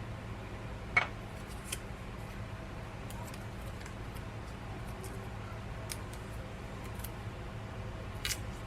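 A handful of small sharp clicks and snips over a low steady hum: a handheld label maker being worked, its cutter snipping off labels. The clearest clicks come about a second in and near the end.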